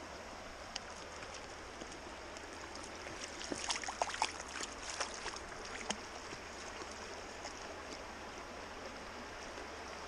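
Shallow stony river running steadily, with a dog splashing as it wades through the water in a cluster of small splashes between about three and six seconds in.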